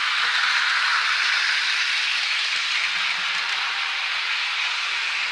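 HO scale Bachmann model train running along the track close by, a steady hissing noise of wheels and motor.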